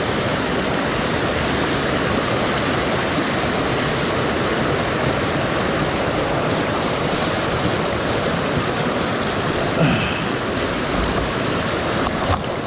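Steady rush of a fast-flowing creek, swollen with storm runoff.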